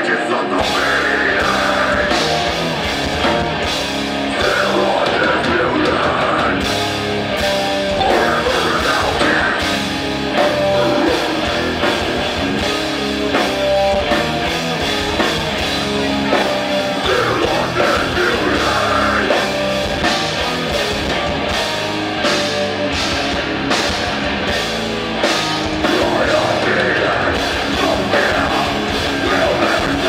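A live band playing loud heavy rock, with electric guitar and a drum kit hitting steadily, and some singing or shouting.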